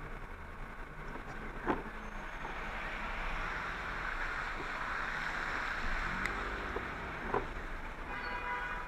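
Traffic on a wet street heard from a slowly moving motorcycle: a steady hiss of tyres on wet asphalt that swells as cars pass close by, over the low running of the bike's engine. Two sharp knocks, one early and one near the end.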